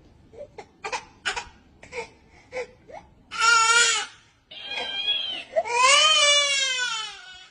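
A baby crying: a run of short catching sobs, then two loud wailing cries in the second half, the last one long, rising and then falling in pitch.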